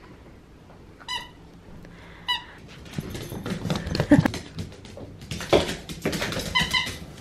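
A dog's squeaky toy squeaks twice in short pulsed squeaks, then dog claws skitter and knock on a hardwood floor while dogs play, with thumps and another squeak near the end.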